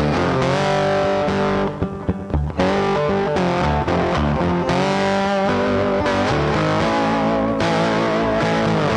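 Background rock music with distorted electric guitar and bass guitar, steady and loud.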